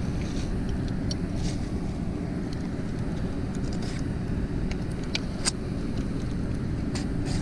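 Steady low rumble of wind buffeting the microphone, with a few faint clicks as the fish-gripper scale is handled.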